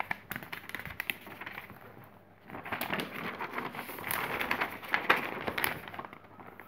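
Large sheets of paper being lifted and turned over: a few light clicks and crinkles at first, then a longer stretch of crackly rustling from about two and a half seconds in.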